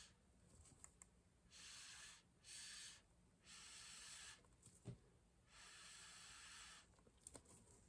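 Faint breath blown through a straw onto wet pour paint, four puffs of hiss of about a second each, pushing the paint outward to open a bloom. There is a small tap between the third and fourth puffs.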